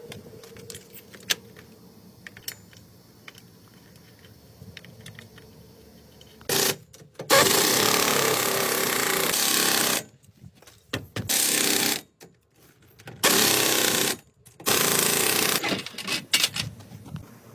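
A power tool runs in four loud bursts of one to three seconds each, starting and stopping abruptly, after several seconds of light clicks and handling noises.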